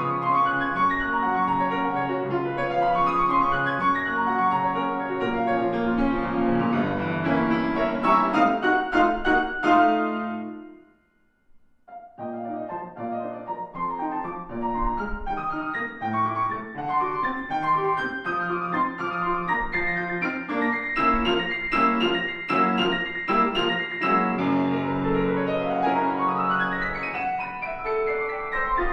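A Longato grand piano plays a classical solo piece. A loud passage breaks off about ten seconds in for a second-long pause, then the playing resumes, with a fast upward run near the end.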